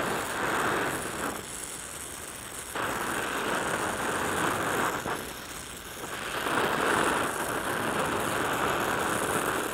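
Oxy-fuel welding torch flame hissing steadily while melting an open-root weld on carbon steel plate. The hiss drops off for a moment about a second in and again about five seconds in.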